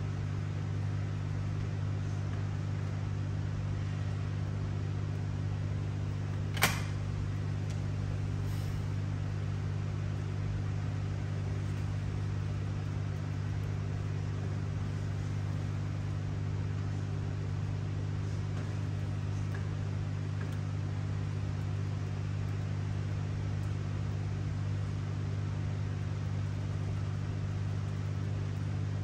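Steady low hum with a single sharp click about six and a half seconds in.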